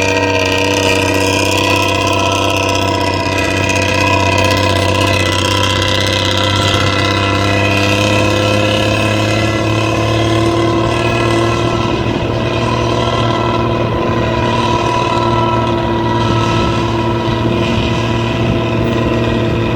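Nissan-chassis bus's diesel engine running steadily under power, its modified exhaust giving a deep snoring drone. The pitch creeps up a little around the middle.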